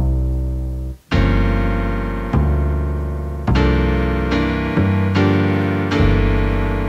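Background keyboard music: chords struck about once a second, each ringing and fading before the next, with a short break about a second in.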